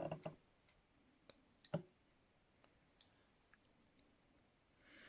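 Faint, scattered metallic clicks of a pen-clip pick being pushed into and worked in a handcuff keyhole, about eight small clicks spread irregularly, the loudest a little under two seconds in.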